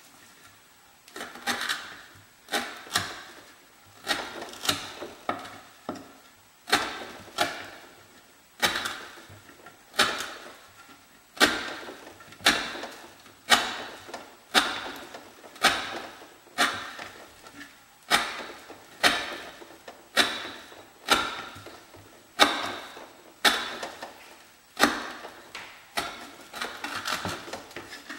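Swamp Rat Rodent Solution fixed-blade knife chopping through 1/4-inch sisal rope onto a wooden board. There is one sharp cut about once a second, starting a little over a second in.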